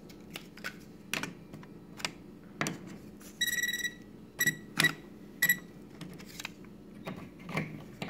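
Non-contact voltage tester beeping as it detects live voltage at the pulled-out switch: one beep of about half a second, then three short beeps. Scattered small clicks and taps from handling the switch and its wiring come before and after the beeps.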